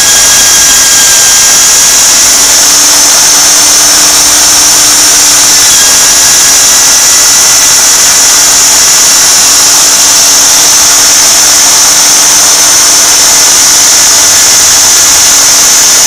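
Small bench drill press running steadily and loud, with a high whine, as it bores the pilot holes in a plastic kettle base out to a larger size.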